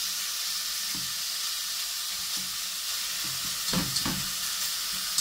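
Thin-sliced chicken frying in chili-garlic oil in a stainless steel stockpot, a steady sizzle, with a spatula stirring and scraping through it; the strokes are strongest about three and a half seconds in.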